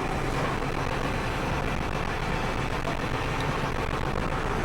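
Tour boat's engine running steadily while under way: a constant low hum with a rush of noise over it.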